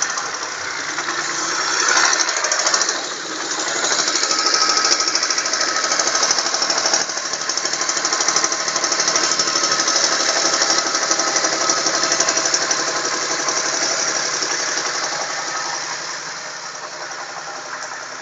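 Honda J25A V6 engine running with a fast, even knocking ticking along with the engine's turning, which the owner takes for piston knock. It is a little louder in the middle and eases toward the end.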